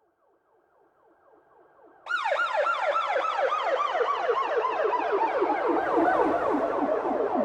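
Police siren in a fast warble, about four sweeps a second. It fades in faint and muffled, then about two seconds in cuts in suddenly loud and clear, its pitch slowly sinking.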